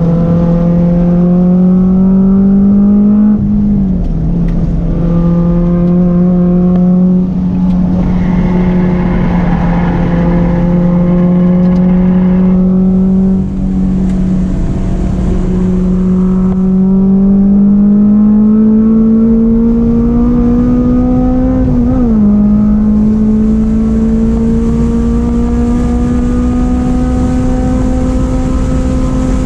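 Honda S2000's inline-four engine pulling hard under acceleration on track, heard from inside the cabin. The engine note climbs slowly in pitch and drops sharply at upshifts about 3.5 seconds in and again about 22 seconds in.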